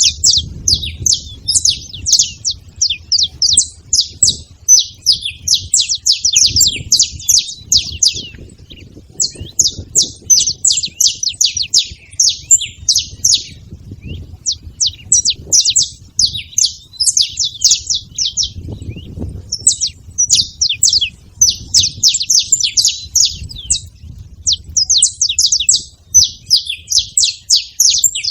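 Saffron finches chirping together: a dense, fast run of sharp high notes that goes on with only brief pauses, over a faint low rumble.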